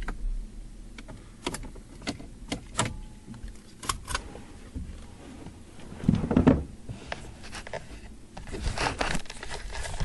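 Clicks, small rattles and handling noises from inside a parked car with the engine off, as a person gathers keys and gets out: a run of sharp clicks, a heavier thump about six seconds in, and more clicks near the end.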